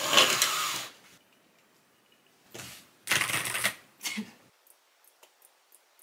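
A few bursts of rustling movement as someone settles at a desk, the loudest at the very start, then from about halfway in, light irregular clicks of a laptop keyboard being typed on, a few a second.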